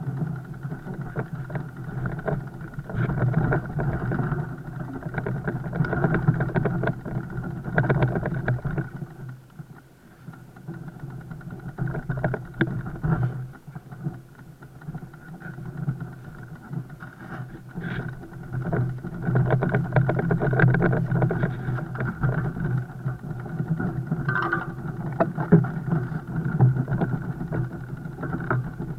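Fat bike riding noise: a steady rumbling drone from the tyres with frequent rattles and knocks from the bike. The loudness rises and falls, dipping briefly about ten seconds in.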